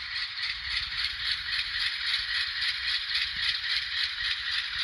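Sound decoder in an N scale GE Dash 9-44CW diesel model playing its diesel engine sound through a tiny onboard speaker while the model runs at low speed. It is a thin, steady, rhythmic chugging with almost no bass.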